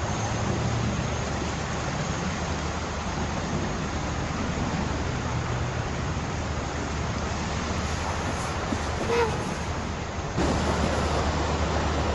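Steady rushing noise over a low rumble, getting louder about ten seconds in.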